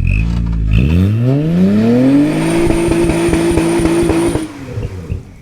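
2006 Honda Accord's 3.0-litre V6, with muffler and resonator deleted and turbo whistles stuffed in the exhaust, revved hard from low revs up to high revs over about a second and a half, then held at high revs for about two seconds during a burnout. The revs and sound drop off sharply near the end.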